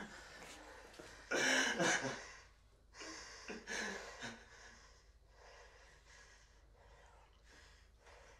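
A man gasping and sobbing in pain: a loud ragged gasp about a second in, a few more shaky gasps, then quieter trembling breaths.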